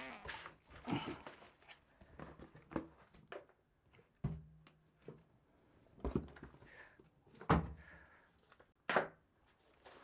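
Cardboard box and foam packing being handled: scattered knocks, thuds and rustles as a boxed UPS in foam end caps and plastic wrap is lifted out and set down on a table.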